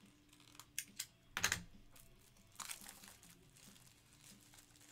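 A few soft, short clicks and crinkling rustles, the loudest about a second and a half in, over a faint steady hum.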